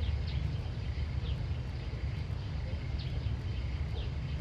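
Outdoor ambience: a steady low rumble with short, high, falling chirps from a small bird about once a second.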